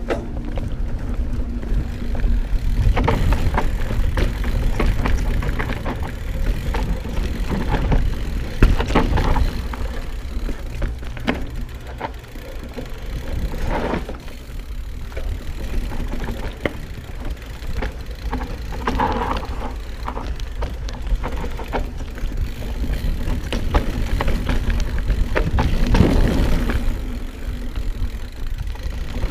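Mountain bike ridden down a dirt trail: wind rushing over the microphone, tyres on the dirt, and frequent clatter from the bike as it rolls over bumps.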